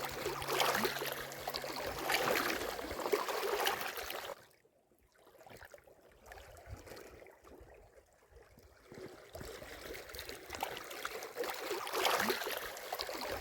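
A steady rushing noise like running water. It cuts out suddenly about four seconds in, stays almost silent for about five seconds, then returns.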